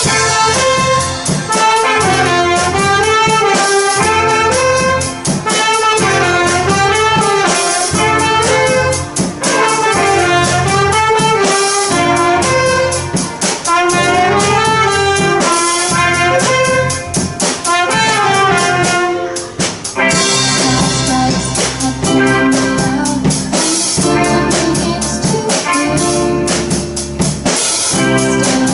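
A student garage band playing live: a trumpet-like lead melody over a drum kit and bass, with the arrangement changing about two-thirds of the way through.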